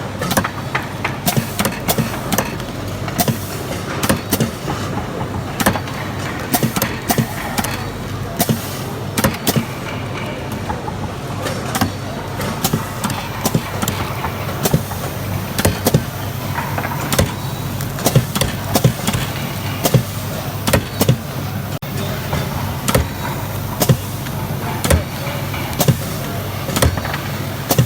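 Shoe-production machinery running: a steady low hum with frequent, irregular sharp clicks and knocks.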